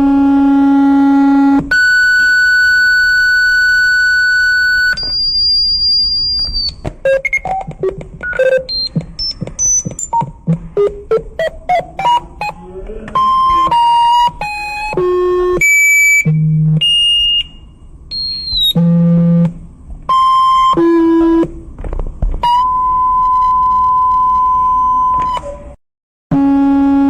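Synthesized mock emergency-alert alarm tones. A buzzy tone gives way to a held high beep, then a fast run of short beeps climbing steadily in pitch. A jumble of short beeps at different pitches follows, then a long steady tone that cuts off briefly near the end.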